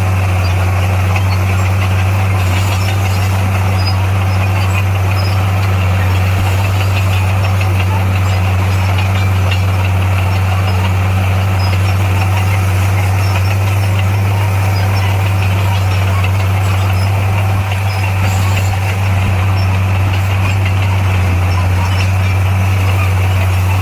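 Heavy diesel engine of earthmoving machinery running loud and steady, a constant low drone with mechanical clatter on top.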